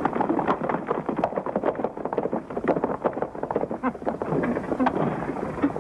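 Hoofbeats of several horses riding off together, a dense, rapid clatter of hooves that thins out near the end.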